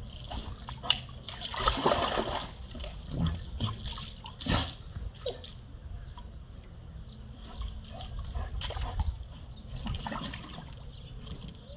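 A yellow Labrador retriever splashing and snapping at pool water as it mouths for a floating tennis ball, in several short bursts, the loudest about two seconds in and again a couple of seconds later.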